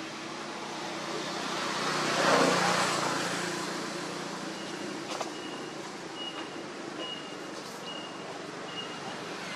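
A motor vehicle passing, its noise swelling to a peak about two to three seconds in and fading away. From about halfway, short high beeps repeat evenly, about one every 0.6 seconds.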